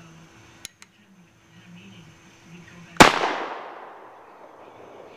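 A single shotgun shot about three seconds in, sharp and loud, with a long echo dying away over about a second. Two light clicks come a couple of seconds before it.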